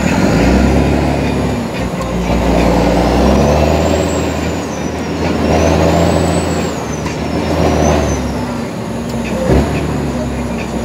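International 9900i truck's diesel engine heard from inside the cab, pulling and revving up, then dropping back, several times as the truck is driven through the gears. A faint high whine rises and falls in the middle, and there is a sharp click near the end.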